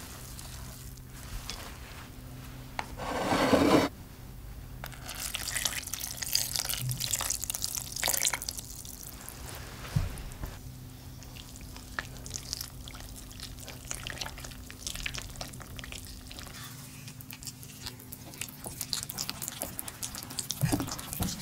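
Milk poured into a glass bowl of flour, cocoa and melted chocolate: a loud pour of about a second, a few seconds in, that stops abruptly. Then a silicone spatula stirs and scrapes the wet mixture against the glass as it comes together into batter, a busy scraping at first that thins to lighter scattered scrapes and clicks.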